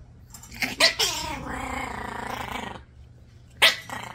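Yorkie Biewer puppy growling and snarling at being handled: a sharp burst about a second in, a drawn-out pitched snarl lasting about two seconds, then another sharp burst near the end.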